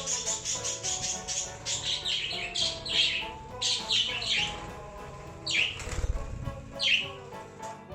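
Budgie chirping and chattering in a quick run of short, falling chirps, with background music under it and a low rumble about six seconds in.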